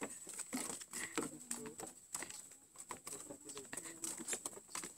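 Footsteps of several people walking on a wooden plank walkway: light, irregular knocks and taps on the boards.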